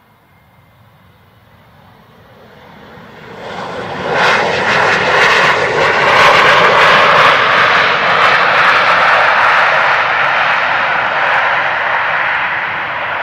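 Jet aircraft engines approaching and passing close: a roar that swells from faint, grows sharply loud about four seconds in, then holds loud and steady.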